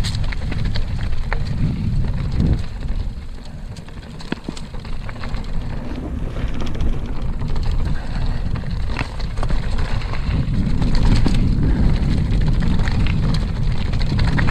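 Mountain bike riding down a dirt trail: wind buffeting the microphone over tyre noise, with scattered clicks and rattles from the bike and trail. It eases off about four seconds in and grows louder again in the second half.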